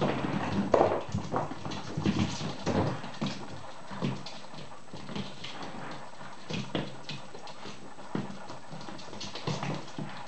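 Whippet puppies play-fighting and tugging a rope toy: their paws patter and scrabble on the hard floor in quick, irregular knocks, with small puppy growls and yips. The scuffling is busiest in the first three seconds, then settles.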